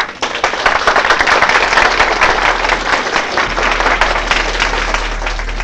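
An audience applauding: many hands clapping steadily, breaking out right after the lecturer's closing words and dying down near the end.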